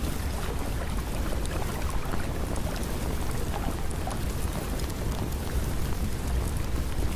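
Steady rain noise, with a low rumble underneath and scattered small ticks of drops.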